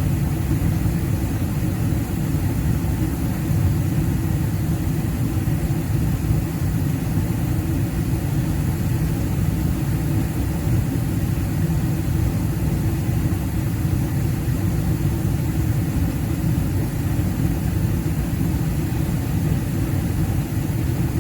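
Residential 80% gas furnace running with its burners lit: a steady, even low rumble of burner flames and fan motors.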